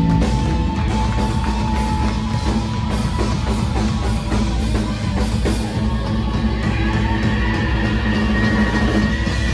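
Punk rock band playing live and loud: distorted guitars holding sustained notes over bass and steady, busy drums with crashing cymbals.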